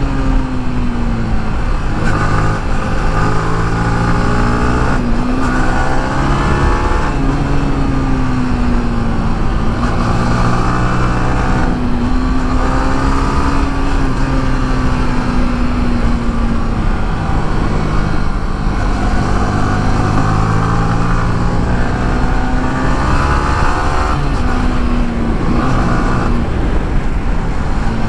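Single-cylinder sport motorcycle engine under hard riding through bends, its pitch climbing and dropping over and over as it accelerates and backs off between corners.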